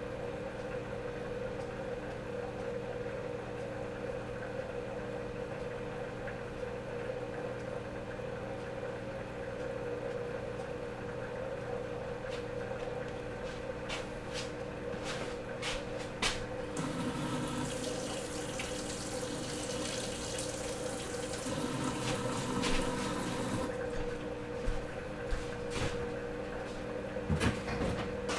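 Steady electric hum with water bubbling, from an air pump aerating the brine shrimp egg and bleach mixture. A few sharp clicks and knocks come midway. Then, for several seconds, a louder rushing, splashing water noise.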